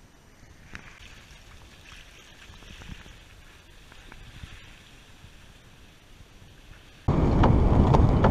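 Water rushing and splashing along a sailboat's hull as it sails, fairly faint. About seven seconds in it gives way abruptly to loud wind buffeting the microphone.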